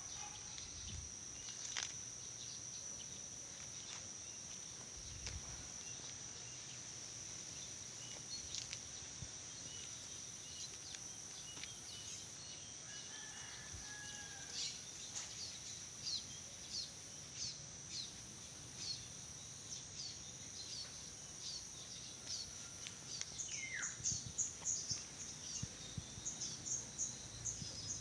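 Outdoor ambience: a steady high-pitched insect drone with short, high bird chirps that come thick and fast in the last few seconds.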